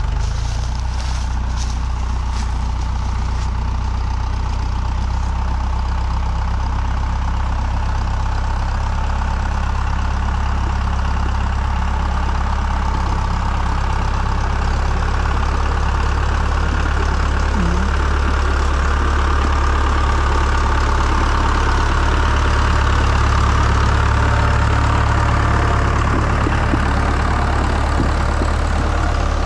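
Tractor engine running steadily at a constant speed, growing a little louder through the second half.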